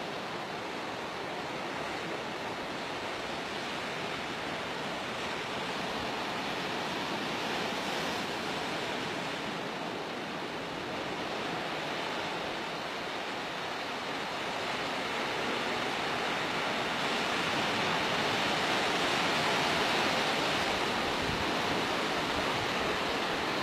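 Steady rushing wash of sea surf on the shore, growing slowly louder through the second half.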